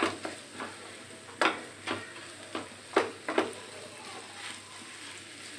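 Wooden spatula stirring grated bottle gourd and scrambled egg in a nonstick frying pan, with about six sharp knocks and scrapes against the pan in the first three and a half seconds, then only a faint frying hiss.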